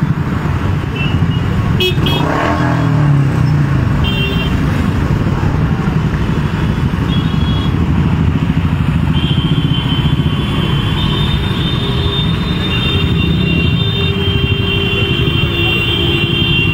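Many motorcycle and scooter engines running at low speed in a slow procession, with several short horn toots and a longer high tone in the second half.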